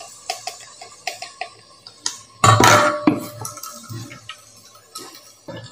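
Steel mixer-grinder jar knocking and scraping against a plastic sieve and steel bowl as ground coconut paste is tipped out for straining: a run of light knocks, then a louder scrape about two and a half seconds in, and a few more taps.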